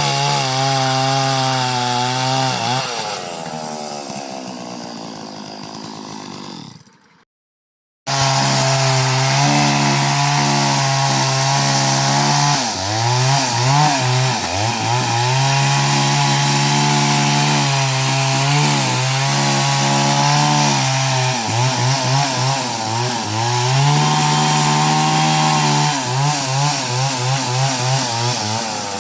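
Chainsaw running under load, its engine pitch repeatedly dropping and recovering as it cuts through a coconut. About seven seconds in it fades away and cuts out completely, then starts again a second later and goes on.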